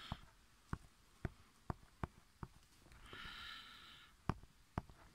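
Zipper on a fabric telescope bag being drawn closed: faint scattered clicks from the pull and fabric, and one short zipping buzz about three seconds in.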